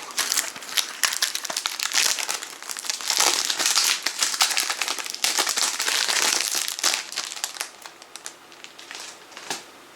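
CD packaging crinkling and crackling as it is handled and unwrapped, dense for most of the time and thinning out over the last couple of seconds.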